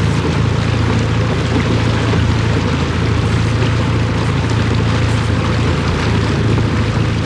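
Boat motor running steadily underway, a constant low hum mixed with water and wind rush.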